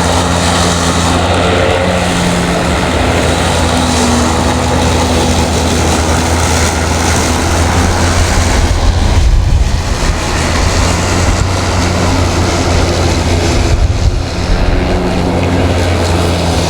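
Battery-powered electric lawn mower with a 20-inch deck running steadily while cutting grass, its motor and blade whirring, with a steady low rumble of wind on the microphone; the sound eases briefly twice.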